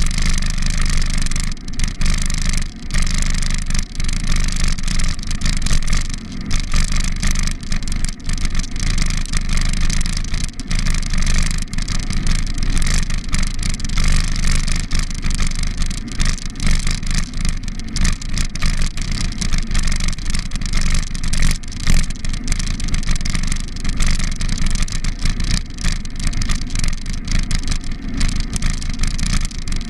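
Steady wind rumble on the microphone of a camera carried on a moving bicycle, with frequent knocks and rattles as the bike jolts over the paved path.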